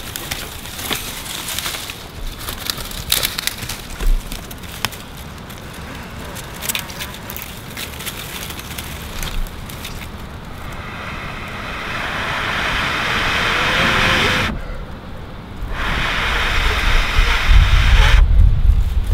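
Open campfire crackling with scattered sharp pops. From about ten seconds in a rushing hiss builds, breaks off for a moment, and then loud wind buffets the microphone near the end.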